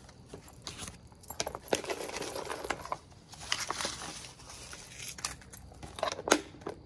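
Small hard objects being handled, rattling and clicking, with bursts of shuffling noise and a few sharp clicks.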